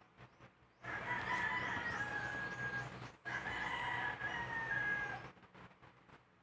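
A rooster crowing twice in a row, each crow a long held call of about two seconds that drops slightly at the end.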